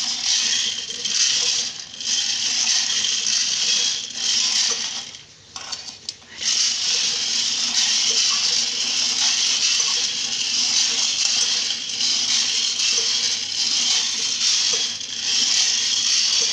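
Coffee beans rattling and tumbling inside a hand-cranked stainless-steel drum roaster as it turns, a steady rattle that stops briefly about five seconds in. The beans are nearly roasted.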